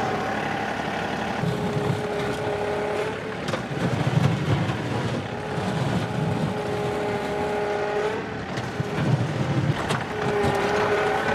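John Deere 2038R compact tractor's three-cylinder diesel running while it digs, with a steady whine. The whine drops out twice as heavier low rumbling comes through under load, and a few knocks of the bucket in the dirt sound now and then.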